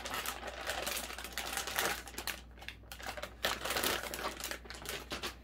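Plastic packaging rustling and crinkling in uneven handfuls as a graphics card is pulled out of its box and wrapping.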